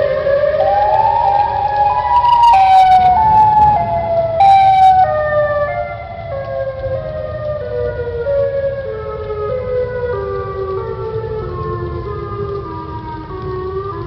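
Electronic emergency alert siren tone climbing in small pitch steps for about two seconds, then stepping slowly back down, over a steady low rumble. It cuts off suddenly at the end.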